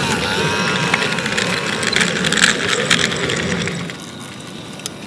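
A 32mm-gauge garden-railway locomotive and coach running past close by, a steady mechanical running sound with rapid clicking from the wheels on the track. The sound drops away about four seconds in.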